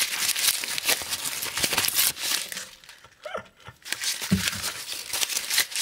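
Euro banknotes crumpled and crinkled in the hands close to the microphone: a dense paper crackle that stops about two and a half seconds in, then starts again more faintly near the end.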